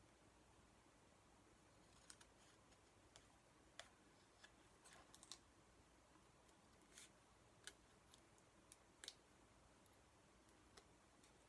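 Faint, irregular snips of scissors trimming around a piece of paper, a sharp click every second or so.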